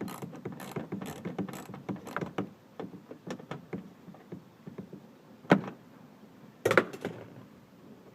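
Hand ratchet clicking in quick irregular runs as a door-panel bolt is turned out, then two louder sharp knocks about five and a half and seven seconds in.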